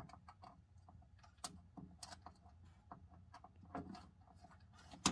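Faint scattered clicks and handling noise of speaker wire being pushed into spring-clip speaker terminals, with a few sharper clicks, the loudest right at the end, as the terminal levers are worked.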